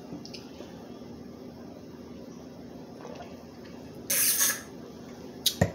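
Eating crab legs: a short hissing slurp about four seconds in, then a sharp click just before the end.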